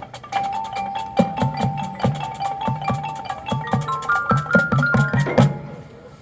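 Marching band percussion playing: drums striking a steady rhythm under mallet percussion playing repeated notes that step upward in pitch, then dying away near the end.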